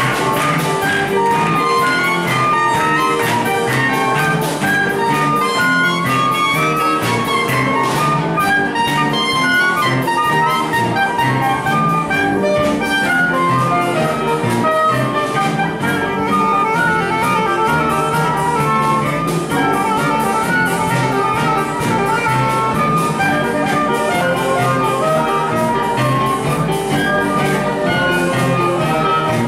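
Live school ensemble playing an upbeat instrumental piece, a drum kit keeping a steady beat under the melody.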